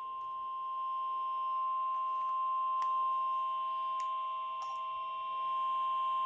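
NOAA Weather Radio 1050 Hz warning alarm tone: a single steady, high-pitched beep heard through a weather radio receiver, signalling a warning-level alert. There are faint clicks of static about three and four seconds in.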